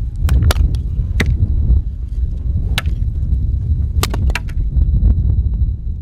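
Blizzard wind buffeting the microphone, a heavy low rumble, with sharp clicks scattered irregularly through it.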